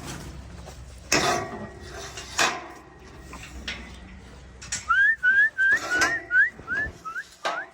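A quick series of about eight short, rising whistled notes, around three a second, over scattered knocks and clatter.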